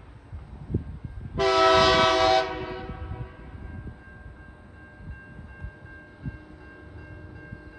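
Horn of an approaching TasRail diesel locomotive sounding one blast of about a second, a chord of several notes, with a short echoing tail.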